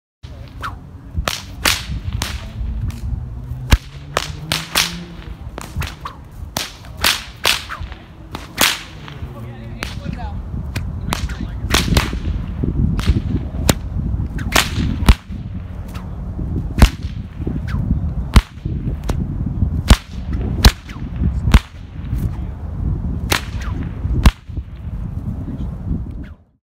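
Bullwhips cracking over and over, including an 8-foot nylon paracord Indy-style bullwhip: dozens of sharp cracks, roughly one a second and now and then two in quick succession, over a steady low rumble.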